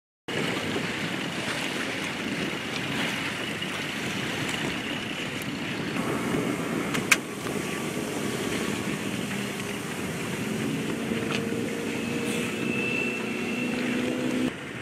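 Motorised watercraft engines running out on open water: a steady, noisy engine drone, with a jet-ski engine tone that comes up and rises slightly in the last few seconds. A single sharp click about seven seconds in.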